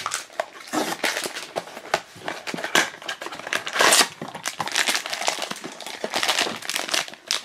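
A cardboard blind box being handled and opened, and the foil bag inside it crinkled and pulled open by hand: dense, irregular crackling and rustling, loudest about four seconds in.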